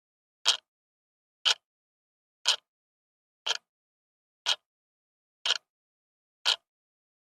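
Clock ticking, one sharp tick per second with silence between, seven ticks in all.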